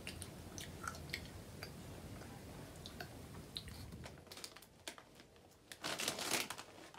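A child chewing crunchy Nerds Gummy Clusters candy with her mouth closed: small, quiet, crisp crunches. About six seconds in, a short loud crinkle of plastic snack packets being handled.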